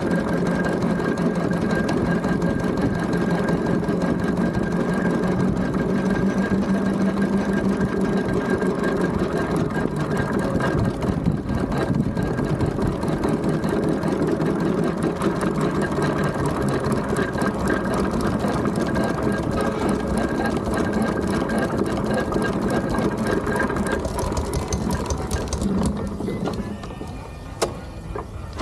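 Steam traction engine under way on the road, a steady, rapid mechanical clatter of its gearing and motion with a constant hum. The running sound dies down about two seconds before the end.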